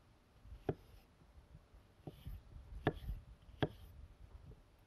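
Chef's knife slicing up a fresh peach, with three sharp knocks as the blade hits the cutting surface.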